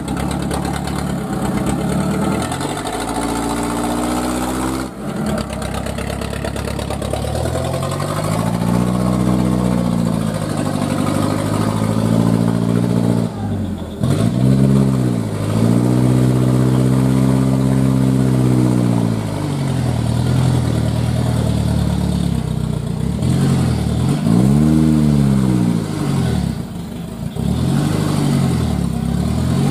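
Old 4x4 dump truck's engine revving up and down as the truck pulls along a muddy track, its pitch rising and falling in repeated swells of a few seconds each.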